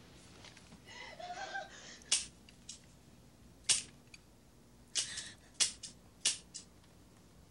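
A handgun dry-firing: about eight sharp, dry clicks at irregular spacing as the hammer falls on empty chambers.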